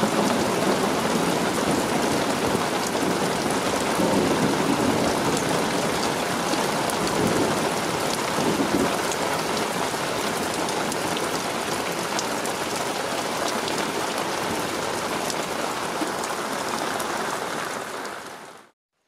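Steady heavy rain falling on the ground and nearby surfaces, with many fine drop taps and a low rumble of thunder in the middle. The rain fades out quickly just before the end.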